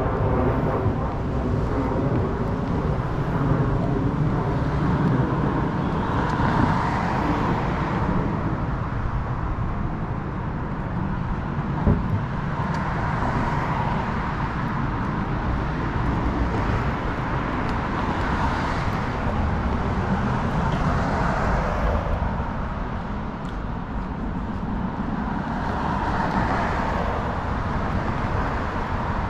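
Street traffic: cars passing every few seconds, their tyre and engine noise swelling and fading over a steady outdoor background, with one short knock about twelve seconds in.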